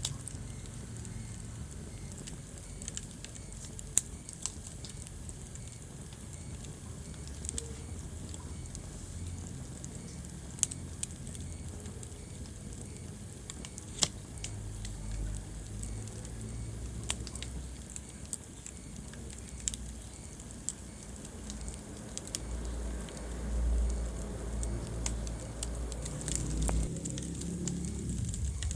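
Wood fire burning in a fireplace: a low, steady rumble of flames with scattered sharp crackles and pops from the burning logs, the loudest pops about four and fourteen seconds in.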